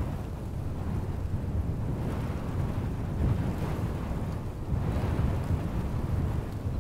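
Wind buffeting the microphone in the open: a low, gusting rumble that swells and eases, with a fainter rush of air above it.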